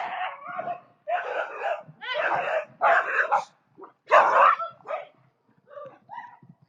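An animal barking: a run of about six loud, harsh calls, each roughly half a second long, growing weaker and sparser near the end.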